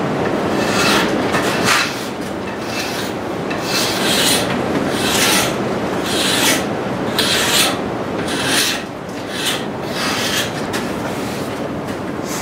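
Repeated hand strokes of a scraping tool along a hickory axe handle, about one rasping stroke a second, shaving wood off to thin an over-thick handle.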